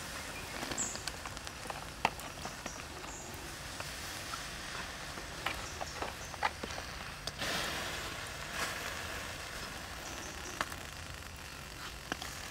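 Freshwater snails grilling in their shells on charcoal embers: scattered sharp crackles and pops, with a brief hiss about seven and a half seconds in.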